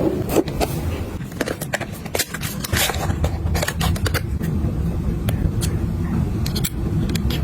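Close-up handling sounds: irregular clicks, taps and scrapes of items and packaging being picked up and set down, over a steady low rumble.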